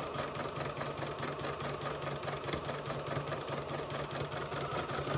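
Domestic electric sewing machine stitching at a steady speed: an even motor hum under a rapid, regular clatter of needle strokes as it sews a row of long basting stitches.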